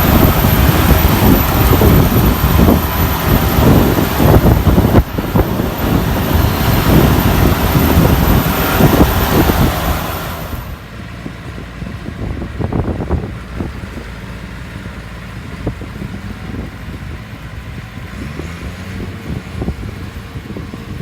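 Combine harvester running loudly; about halfway through the sound drops sharply and the high-pitched part falls away, leaving a quieter low engine rumble.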